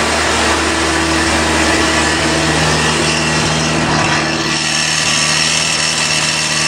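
Freshly rebuilt Mazda 12A two-rotor rotary engine idling steadily on the choke, cold, shortly after start-up.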